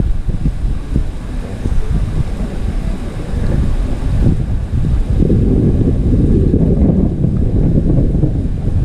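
Heavy rain in a summer downpour, with wind buffeting the microphone; a low rumble swells about five seconds in.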